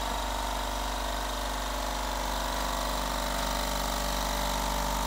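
Electric cigarette tube filling machine running steadily, a sound-insulated cabinet around its mechanism, giving an even machine hum with several constant tones.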